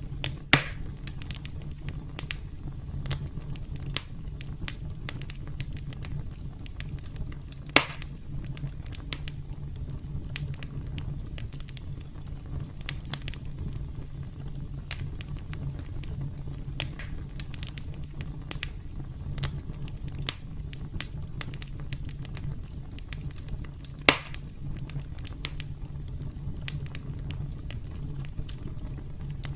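Campfire burning: a steady low rumble of flames with frequent sharp crackles and pops, three of them much louder, about half a second, eight seconds and twenty-four seconds in.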